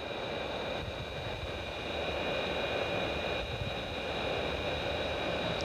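Hot-air reflow station's blower pushing a steady hiss of hot air out of its nozzle, with a faint steady high whine, while solder is reflowed to seat a replacement surface-mount part on a circuit board.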